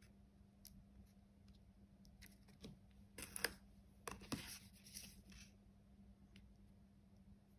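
Faint scraping and light clicks of a metal palette knife working pink-tinted lightweight filler onto a polystyrene cake slice, mostly in a short cluster a few seconds in, over a low steady hum.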